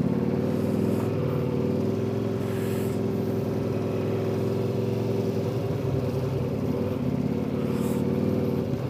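A motorcycle engine running steadily under the rider, with an even, unchanging pitch.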